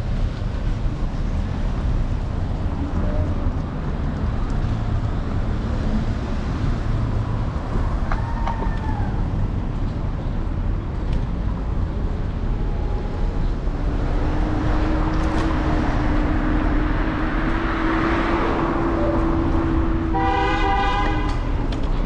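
Street traffic and wind rumbling over a microphone mounted on a moving electric scooter's handlebars. A steady hum joins about two-thirds of the way in, and a short, pulsing horn sounds near the end.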